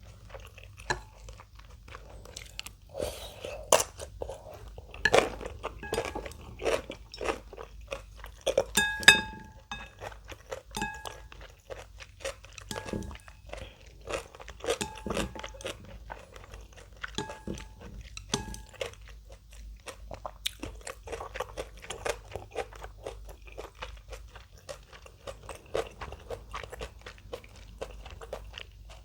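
Close-miked chewing and crunching of kimchi, with dense, irregular crisp bites. Partway through, a short high beep repeats about every two seconds for several seconds.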